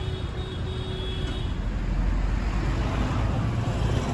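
Steady low rumble of road traffic, with a faint thin high tone in the first second and a half.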